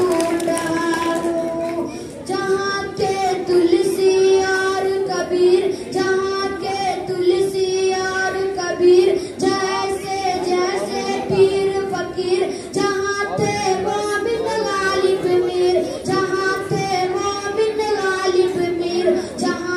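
A boy singing solo into a handheld microphone, a melodic line of long held notes that slide from one pitch to the next.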